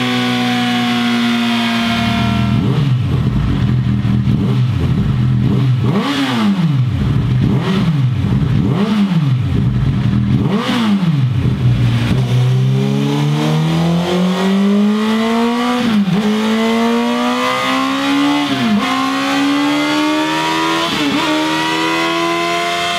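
Honda CB1000R's inline-four engine on a dynamometer, heard through a Scorpion Serket Parallel slip-on exhaust idling and blipped sharply several times. About twelve seconds in, it switches to the Red Power slip-on, with the engine pulling up through the revs and dipping briefly three times as gears are changed.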